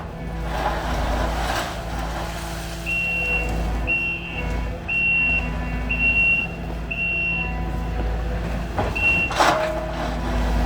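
Kubota SSV75 skid steer's diesel engine running steadily while its reverse alarm beeps about once a second, and the machine backs up. A sharp clunk is heard near the end.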